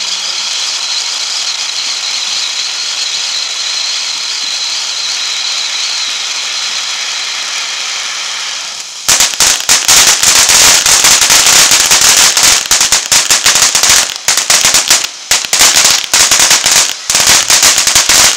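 Ground fountain firework hissing steadily as it sprays sparks. About nine seconds in it breaks into loud, dense crackling as it throws out crackling stars.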